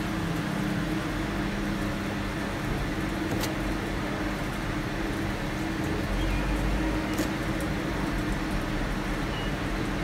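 Steady background hum, with a deeper low rumble swelling about six seconds in and a couple of faint clicks.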